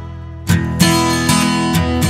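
Background music of strummed acoustic guitar: a held chord fades, then new strums come in about half a second in.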